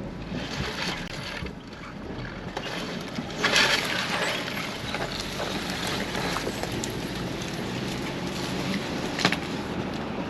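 Off-road 4x4 crawling over rock: engine running low under an even rumble, with crunching and scraping from tyres and underbody on stone. A loud scrape about three and a half seconds in, and a sharp knock near the end.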